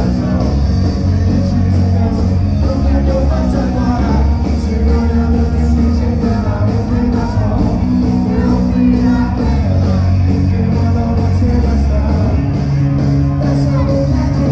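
Live band playing loud amplified rock-style music, electric guitars, bass and drums over a steady beat, with singing.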